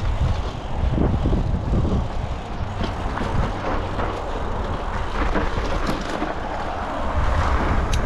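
Mountain bike rolling over a dirt singletrack and onto gravel: tyre noise and the rattle of the bike over the bumps, with a few sharp clicks, under wind rushing over the camera's microphone.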